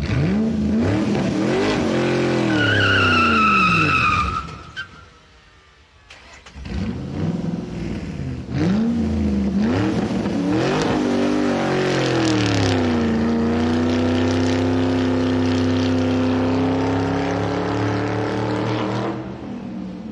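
Car engine accelerating hard, its pitch climbing and dropping through repeated gear changes, with a high tyre squeal about three seconds in. After a short lull it accelerates again through several shifts, then holds a steady high note at speed before easing off near the end.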